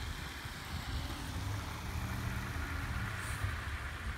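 Low, steady engine drone of a vehicle, swelling a little in the middle.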